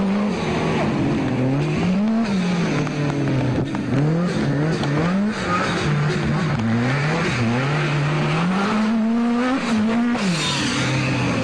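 Lancia Delta S4 Group B rally car engine driven hard on a stage. The engine note climbs and drops again and again as it shifts gears and lifts off between corners.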